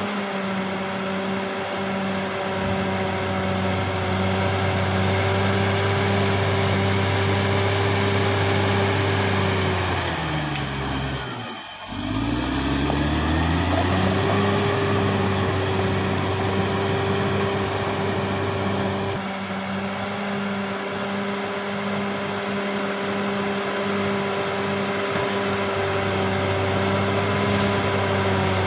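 CAT D6R XL bulldozer's diesel engine running steadily at working revs with a faint high whine above it. About ten seconds in, the engine note falls away sharply and climbs back up within a few seconds.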